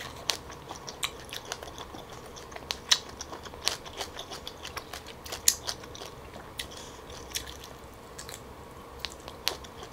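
Shell of a steamed tiger prawn being peeled by hand: scattered sharp clicks and crackles, a few a second. Chewing of the prawn meat near the end.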